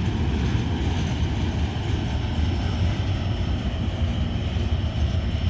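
Long freight train's cars rolling slowly past at low speed, a steady low rumble of wheels on the rails.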